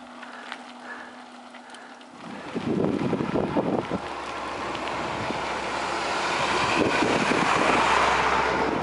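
Wind rushing over the microphone of a moving bicycle, with a large truck's engine rumble coming in about two seconds in and growing louder as the truck passes close by, loudest near the end.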